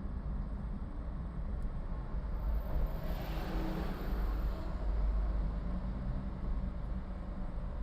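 A car driving on a city street: steady low engine and road rumble, with a brief swell of rushing noise about three seconds in.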